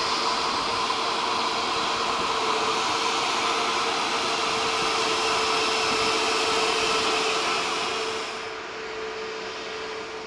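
Airbus A320neo's CFM LEAP-1A turbofans at taxi power as the airliner rolls toward the microphone: a steady jet whine over a hissing rush. About eight and a half seconds in it drops away to a quieter, more distant jet sound.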